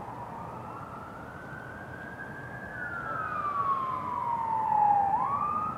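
Police siren wailing: the pitch climbs slowly, falls over a couple of seconds as the siren grows louder, then sweeps back up quickly near the end.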